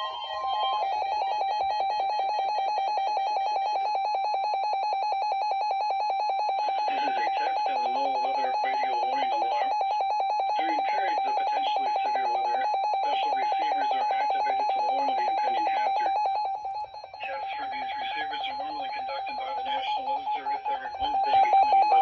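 NOAA weather alert radio receivers sounding their alarm, a loud, rapidly pulsing beep set off by the Required Weekly Test broadcast. From about a third of the way in, the radio's synthesized announcer voice can be heard beneath the alarm. The alarm drops out briefly about three quarters through, then sounds again.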